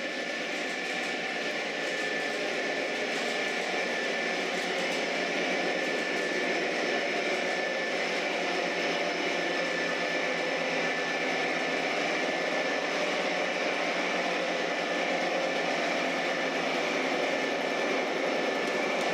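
Proto-Sound 3.0 diesel engine sound of an O-scale model CSX AC4400CW, played through the model locomotive's small onboard speaker: a steady engine drone with no deep bass.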